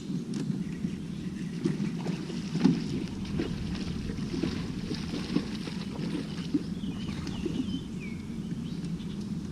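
Steady low rumble of a small fishing boat on the water, with scattered light knocks. A few faint bird chirps come about seven to eight seconds in.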